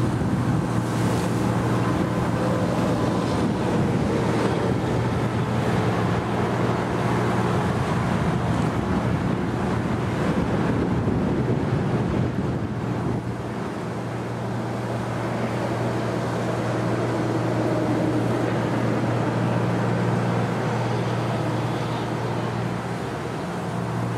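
A fire engine's diesel engine running steadily with a constant low hum, as when it drives its pump to supply the hoses, under a steady rushing noise.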